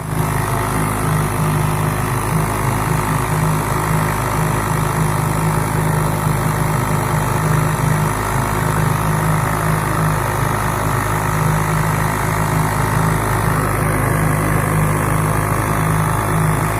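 Small engine running steadily at a constant speed after its throttle opens right at the start, with a low even drone.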